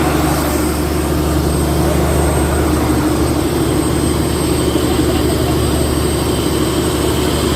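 A fishing boat's engine running steadily, a low even drone.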